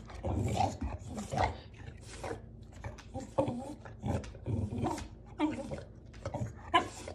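A dog making a string of short vocal sounds, roughly one every half second to a second.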